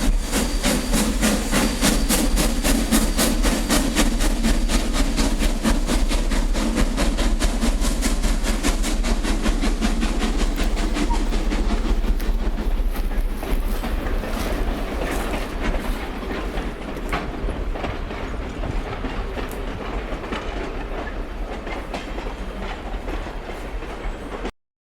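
A 1924 ALCO 2-6-2T tank steam locomotive and its train running with a fast, even rhythmic clatter of about four beats a second. The clatter grows fainter from about halfway through, then cuts off abruptly just before the end.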